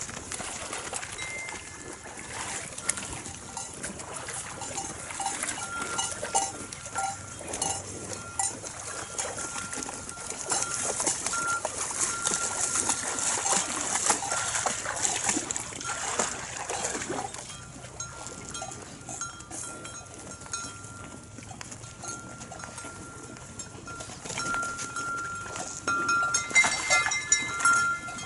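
N'Guni cattle wading and drinking in shallow lake water: hooves splashing and sloshing, with many small knocks and clinks and a thin high ringing note that comes and goes.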